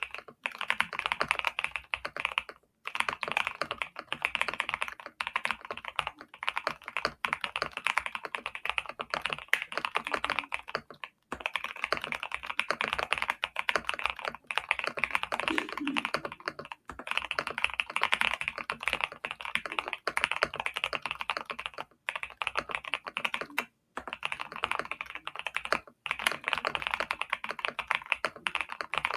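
Typing on a GMK67 mechanical keyboard with factory-lubed Vertex V1 switches and Cherry Ember keycaps: a fast, steady run of keystrokes, broken by a few short pauses.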